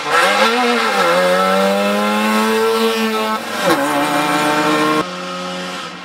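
Trabant 601 rally car's engine revving hard as it goes through a corner, its pitch dipping briefly about a second in, then holding high before dropping at a gear change around three and a half seconds in and climbing again. The sound falls away suddenly about five seconds in.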